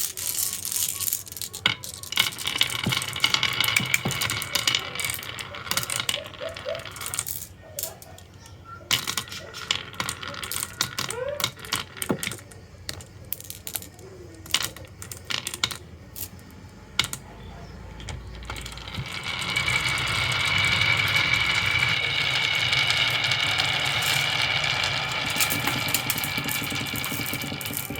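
Marbles clattering and rolling down a wooden marble run, with many sharp clicks as they drop and strike the track pieces. About two-thirds through the noise becomes a steadier, louder rolling sound.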